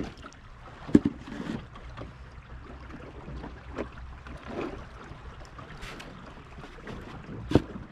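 Scattered knocks and rustles of people and gear moving in a small boat with its motor off, over a faint wash of water and wind noise. The sharpest knock comes near the end.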